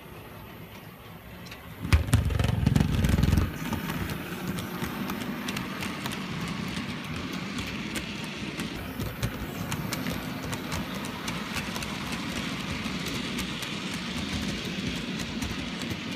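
OO gauge model diesel locomotive and its wagons running past close by: a motor hum and a steady rattle of wheels on the track with many small clicks. It is loudest from about two seconds in for a second and a half as the locomotive passes nearest.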